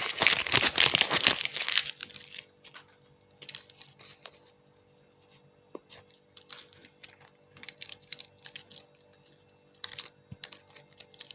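Plastic candy wrapper being torn open and crinkled: a loud rustling tear in the first two seconds, then scattered light crackles and clicks.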